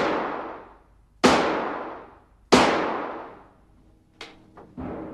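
Gunshots on a firing range: three loud shots about a second and a third apart, each ringing out and fading slowly in a reverberant space. Near the end come two light clicks and a duller knock.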